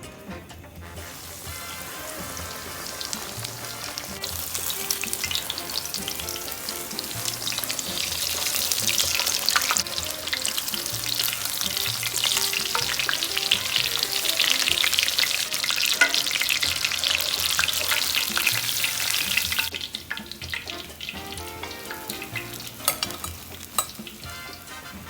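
Chicken frying in hot oil in a pan: a dense, crackling sizzle that swells after about a second and drops sharply to a faint sizzle about 20 seconds in. Background music with a repeating low line plays underneath.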